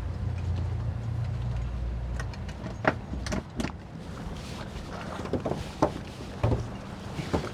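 Boat engine running low and steady, dropping away about two seconds in as it is throttled back. Then comes a series of sharp knocks and short squeaks as the boats come alongside.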